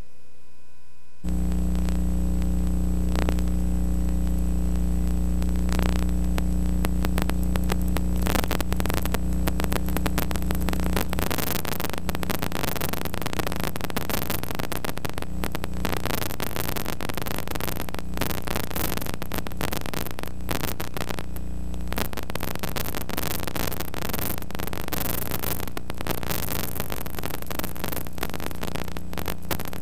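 Steady electrical hum under loud hiss and crackling static, starting suddenly about a second in; the hum fades after about ten seconds and the crackly static continues.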